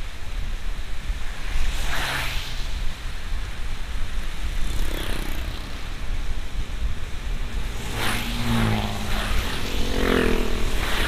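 Car driving on a wet road, heard from inside the cabin as a steady low rumble of road and engine noise. Other vehicles' engines pass about two seconds in and again, louder, over the last few seconds.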